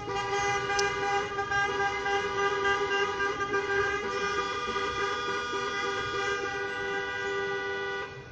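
Car horn held down in one long unbroken blast lasting about eight seconds, a steady single pitch that cuts off near the end. It is a car that keeps honking.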